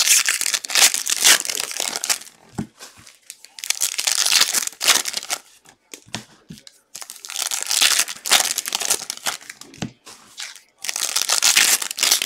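Foil football-card pack wrappers being torn open and crinkled by hand, in four bursts of crackling separated by short pauses.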